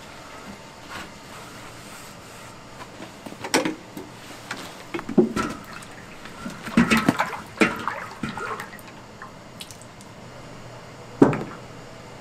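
Cooking oil pouring and glugging from a large metal tin of canola oil into a big steel wok, in irregular gushes, with a few metal clanks and a sharp knock near the end.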